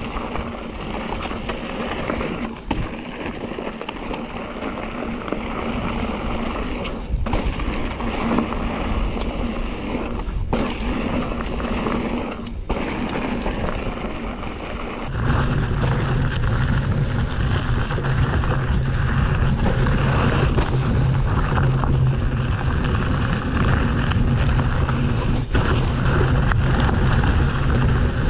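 Hardtail mountain bike riding fast down a dirt singletrack: tyres rolling over loose ground with the bike rattling and knocking over bumps, under steady wind noise on the helmet-camera microphone. About halfway through a heavy low rumble of wind comes in and the whole sound gets louder.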